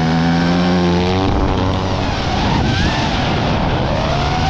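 Motocross bike engine held at steady revs for about a second, then dropping into rougher, uneven running with its pitch wavering up and down.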